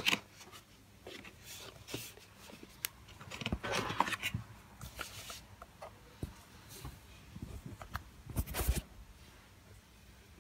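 Cardboard packaging scraping and rustling as a plastic drone remote controller is pulled out of its box and handled, with a few light knocks and clicks in between. The loudest scrapes come about four seconds in and again at about eight and a half seconds.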